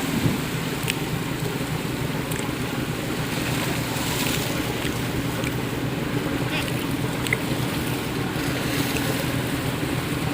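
A car ferry's engines drone steadily as the ship manoeuvres to dock, with rushing water and wind on the microphone.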